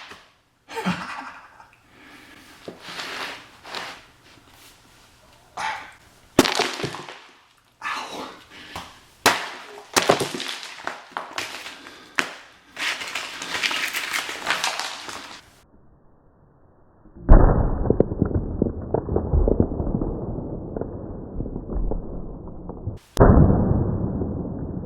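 Graham-cracker gingerbread houses being smashed apart: a run of sharp cracking and breaking impacts, then two loud, dull blasts about 17 and 23 seconds in, each trailing off slowly.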